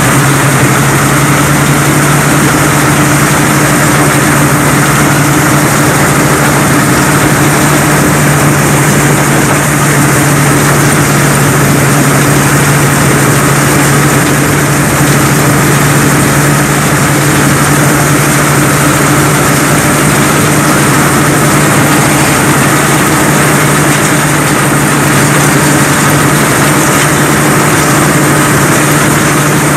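Rice combine harvester running steadily while it cuts rice: a loud, continuous drone from its engine and threshing machinery at an even pitch.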